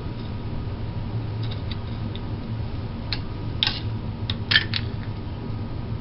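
A handful of short sharp clicks and scrapes of metal and plastic parts being worked by hand, clustered a few seconds in, over a steady low hum.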